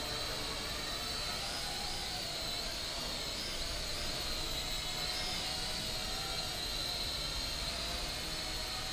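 Small toy quadcopter drone flying, its motors and propellers making a steady high-pitched whine that wavers in pitch as it manoeuvres.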